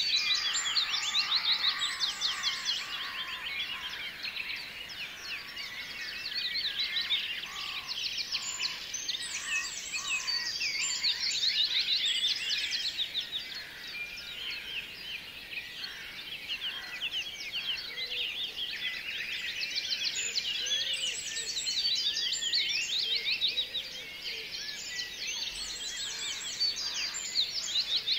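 Dense chorus of many small birds chirping rapidly without a break, swelling and fading in loudness every few seconds.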